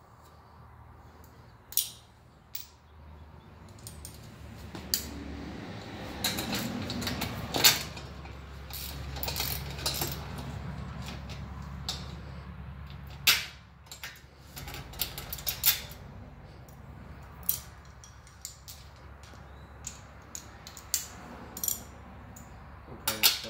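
Metal hand tools clinking and clicking as a wrench and socket are worked on the mounting bolts of a front-mount intercooler, in irregular sharp clinks throughout. A low steady hum sits underneath through the middle.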